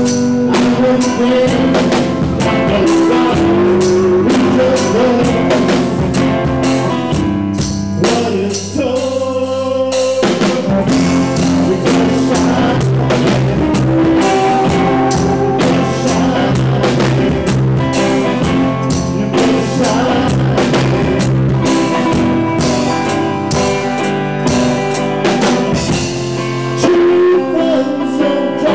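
Live band playing a song: strummed acoustic guitar, electric guitar, electric bass and drum kit, with a male lead singer. The drums drop out for about two seconds around eight seconds in, then come back.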